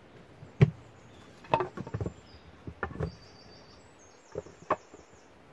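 Wooden boards being shifted on an earth floor, knocking together in a string of dull knocks, the first the loudest. A small bird sings two short trills in the background.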